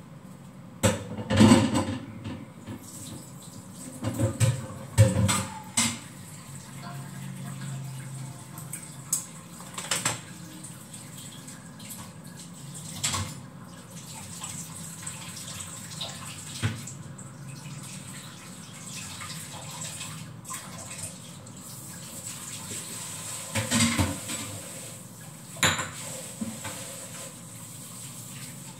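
Washing up at a kitchen sink: dishes and utensils clatter against each other and the sink every few seconds, over water running from the tap.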